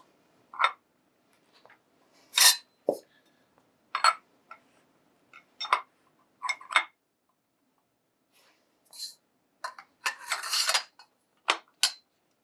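Steel wrenches and a cheater bar clinking against the stainless-steel sonotrode and each other as they are set on the flats for tightening: scattered sharp metal clinks, with a longer rattle about ten seconds in.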